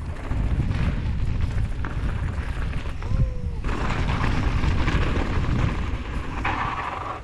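Mountain bike descending a rough dirt trail: a steady rumble of wind on the camera microphone mixed with tyre and bike rattle over the ground, growing hissier and busier from about halfway in.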